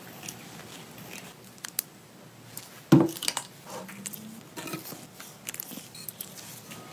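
Close-up handling sounds of workshop parts: soft rustles and small clicks, with one loud clack about three seconds in as a spring clamp is clipped onto a battery terminal.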